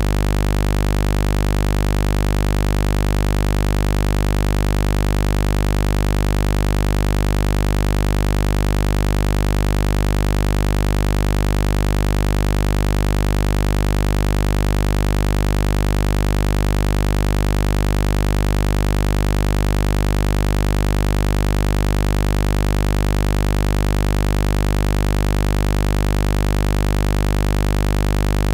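Heavy buzz sound effect: a steady, low electric buzz with many overtones, unchanging in pitch and loudness.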